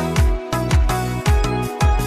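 Background music with a steady beat of about two kick-drum thumps a second over a bass line.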